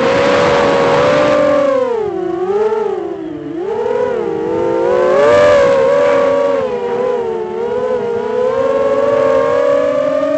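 Storm Loki X4 Mini 4-inch FPV quadcopter's brushless motors and propellers whining, heard from its onboard camera. The pitch rises and falls with throttle, dipping twice a couple of seconds in, then climbing and holding higher, over a rush of wind.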